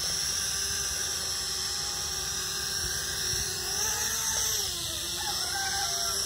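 Small toy quadcopter drone's propellers whining steadily, the pitch rising and then falling a few seconds in.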